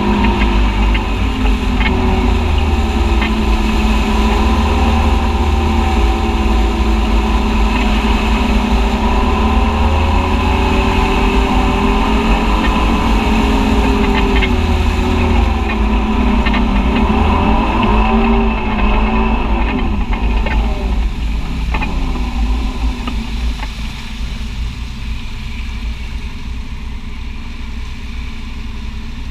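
Side-by-side UTV engine under load as it drives through mud, its pitch rising and falling with the throttle. About two-thirds of the way in it eases off and drops to a quieter, steadier run.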